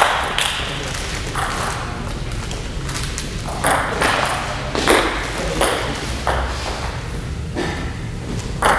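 Table tennis rally: the celluloid ball clicking sharply off the bats and the table, the hits coming roughly every half to three-quarters of a second for most of the exchange, with a short echo after each in a large hall.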